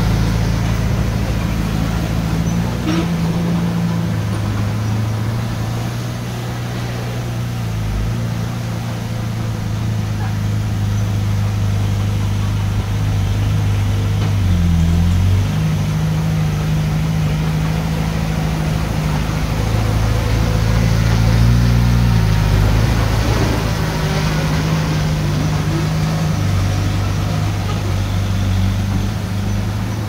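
Diesel engine of heavy earthmoving machinery running under load, its engine note stepping up and down in speed several times as the machine works.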